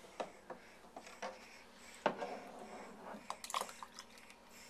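Small water splashes and light knocks in a plastic infant bathtub, a scatter of short sounds with the biggest about two seconds in and a quick run of them around three and a half seconds.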